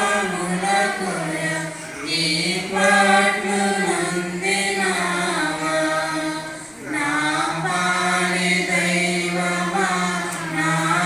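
Slow devotional hymn sung in long held notes, a single melody line in phrases of about two seconds with short breaks between them.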